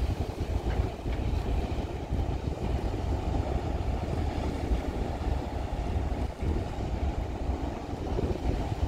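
Deep, steady rumble of the passenger ferry Nissos Rodos's engines as it pulls away from the quay, mixed with wind buffeting the microphone.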